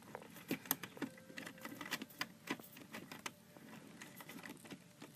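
Irregular light clicks and taps, several a second, like small hard pieces being handled.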